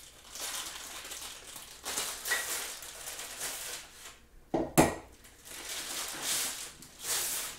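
Plastic packaging crinkling and rustling as it is pulled open, with one sharp knock a little past halfway as a metal pole is set down on the wooden table.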